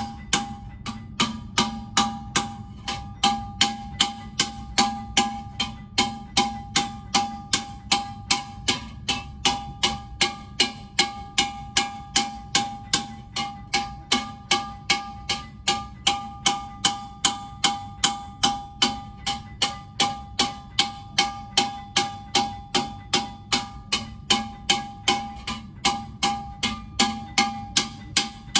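Small hammer striking a copper vase held over a metal stake, in a steady even rhythm of roughly two and a half blows a second. Each blow rings with a clear metallic tone at the same pitch: hand-hammering, or tankin, of a vessel raised from a single copper sheet.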